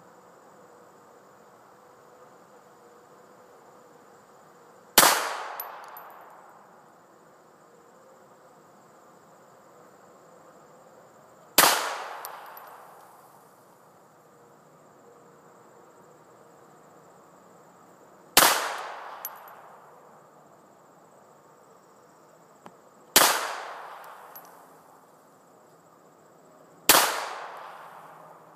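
Five single pistol shots from a Bersa handgun, fired slowly several seconds apart, each with a short echoing tail. A steady insect buzz runs underneath.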